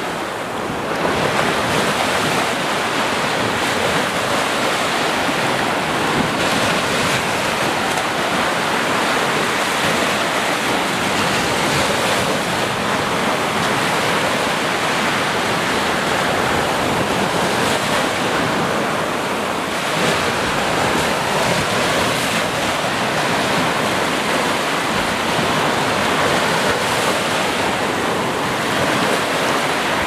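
Ocean surf: waves breaking and washing up the shore in a steady rush.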